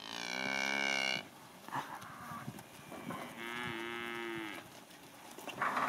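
Cows mooing twice: one call of about a second right at the start, then a second call a little over a second long about three and a half seconds in.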